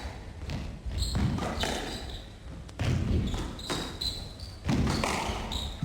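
Squash rally: sharp knocks of the ball off racquets and the court walls, roughly one a second, with short high squeaks of court shoes between them.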